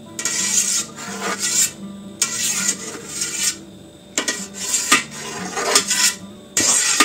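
A long knife drawn through set rennet milk curd in a stainless steel pot, its blade scraping along the metal pot in repeated strokes, about one a second or so, as the curd is cut into columns for mozzarella.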